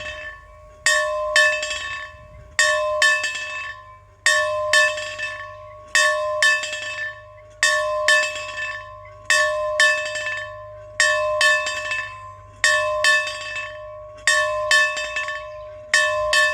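A metal bell rung over and over, struck in quick pairs about every second and a half, about ten pairs in all, each strike ringing out with the same clear tone.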